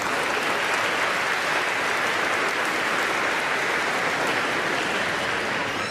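Audience applauding: steady, dense clapping that eases off at the very end.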